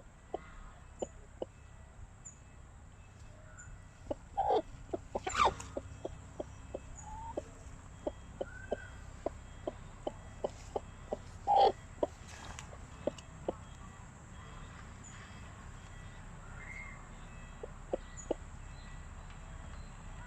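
Broody Sanhuang hen sitting on eggs, giving a steady run of short low clucks, about two or three a second. Two louder, longer calls come about four and a half seconds in and again near twelve seconds. The clucking thins out over the last few seconds.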